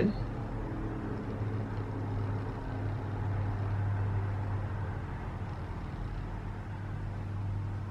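A low, steady background hum, swelling slightly near the middle and easing off again.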